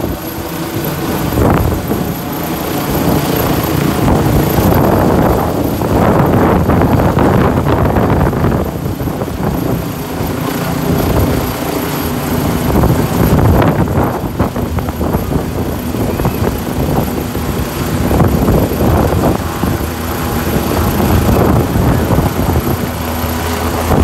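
Helicopter flying low overhead, its rotor and engine loud and steady.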